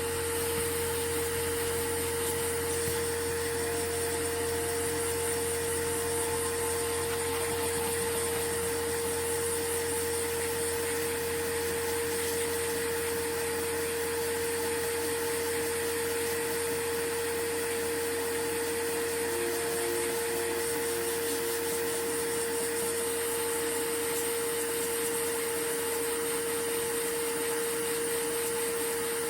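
Steady whirring of a small motor or fan, with one constant pitched whine over an even hiss, unchanging throughout.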